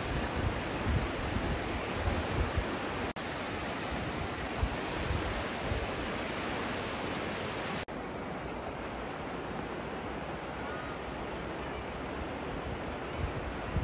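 Swollen, muddy Indus River in flood, its fast water making a steady rushing noise, with gusts of wind buffeting the microphone. The sound drops out for an instant twice, at about 3 and 8 seconds in.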